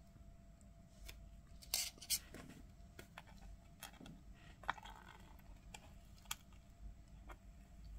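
Light clicks and taps of a soldering iron and solder being handled at the bench, with two sharper clicks close together about two seconds in, over a faint steady hum.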